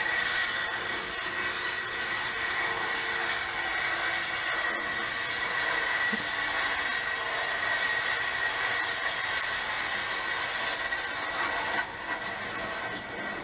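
Super Farm pulling tractor's modified diesel engine running flat out under load as it drags the sled, a steady loud engine noise with a high steady whine over it. The level drops suddenly near the end.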